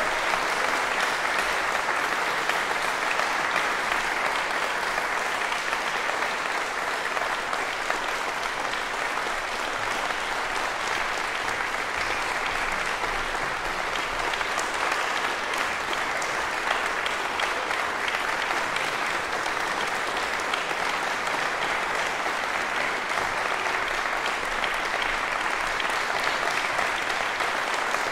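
Sparse concert-hall audience applauding steadily.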